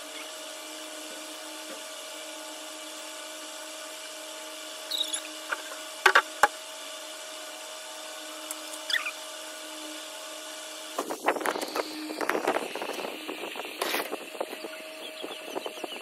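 Steady hum with a few short squeaks and sharp knocks as a plastic dress form is handled. From about 11 seconds in, a dense clatter of handling noise as the phone camera is picked up and moved.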